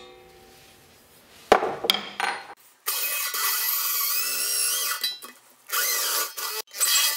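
Corded electric drill boring into a stainless steel container, the bit giving a high wavering whine against the metal. It runs for about two seconds, then in two shorter bursts near the end, after a sharp knock about a second and a half in.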